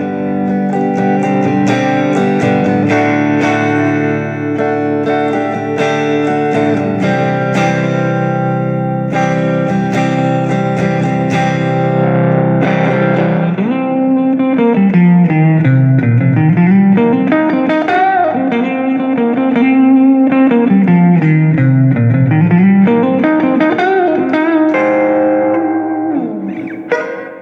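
Electric guitar, a Stratocaster through a Fender Champion 20 amp set on the edge of breakup and boosted by an Electro-Harmonix LPB1. Ringing chords are strummed for about the first half, then single-note lead lines with bends and slides follow from about halfway in.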